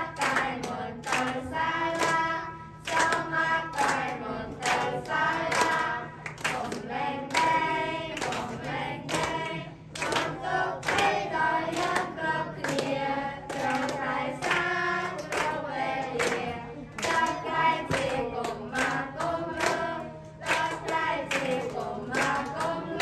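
A group of children singing a song together, with hand claps along the beat.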